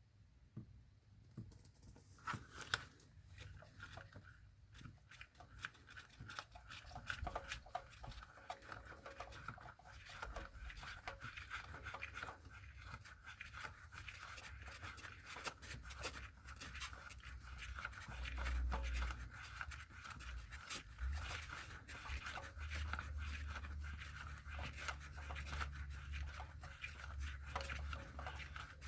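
Faint, scattered clicks and handling noise of hands and tools working the oil filter loose under a car, with a low rumble growing in the second half.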